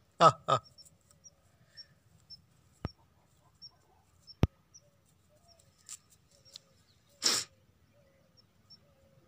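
Puppy giving two short, loud yelps that fall in pitch at the start, then a sharp sniffing snort about seven seconds in as it noses the ground. A couple of sharp clicks come between, and small birds chirp faintly throughout.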